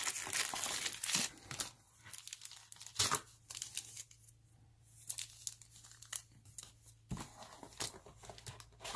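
Packaging crinkling and rustling in bursts as board game components are handled, with a few light knocks, and a quieter pause in between.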